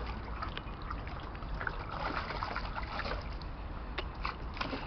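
Shallow water in an inflatable paddling pool sloshing and splashing as a Jack Russell puppy paddles about in it, in small irregular splashes.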